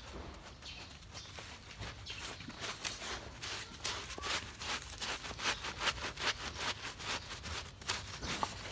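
Wet, soapy dog fur being scrubbed by hand: a quick run of squishy rubbing strokes through the lather that starts about two seconds in.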